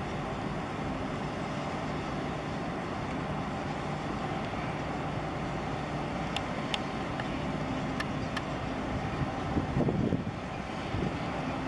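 A small boat's engine running steadily, with water and wind rushing past, seen from the boat itself. A few sharp clicks come between about six and eight seconds in, and a brief louder rush of water or wind comes about ten seconds in.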